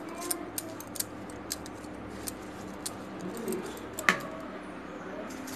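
A spoon stirring a thick curd and grated coconut mixture in a bowl, clicking against the bowl again and again, with one sharper knock about four seconds in.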